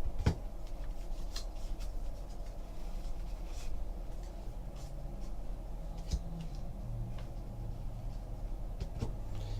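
Light rustling and scattered soft clicks of baseball cards being handled and flipped through, over a faint steady low hum.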